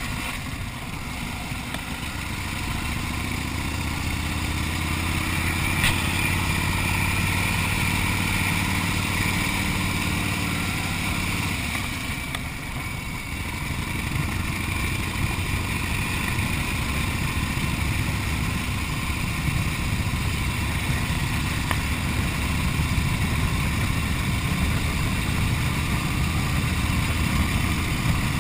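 1929 Harley-Davidson JDH two-cam F-head V-twin running under way, with wind and road rush. The engine eases off twice, about two seconds in and again about halfway, then pulls back up.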